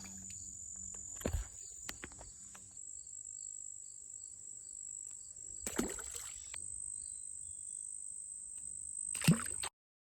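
Insects singing outdoors: a steady, high, thin trill that shifts slightly higher about two-thirds of the way through. A few short knocks and handling rustles come about a second in, around six seconds in, and a louder one near the end, after which the sound cuts off.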